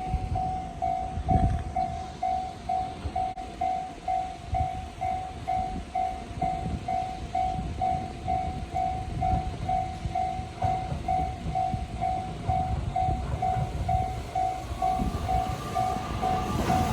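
Japanese railway level-crossing alarm bell ringing steadily, about two and a half strokes a second, over a low rumble. Near the end a higher whine from an approaching train joins in.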